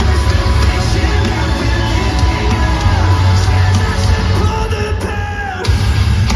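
Metalcore band playing live and loud through a stadium PA, sung and yelled vocals over heavy guitars and drums. About four and a half seconds in the low end drops out for about a second under a falling guitar or vocal line, then the full band crashes back in.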